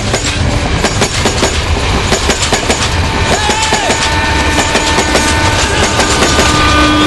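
Film soundtrack: a steady low rumble with a dense, continuous clatter, joined about three and a half seconds in by a held tone, with more tones coming in near the end.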